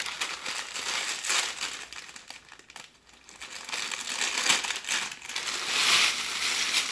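Crinkling of a saltine cracker wrapper sleeve and the rustle of crushed saltine crackers being poured out of it into a large stainless steel mixing bowl. The sound eases off near the middle and picks up again in the second half as the crackers pour.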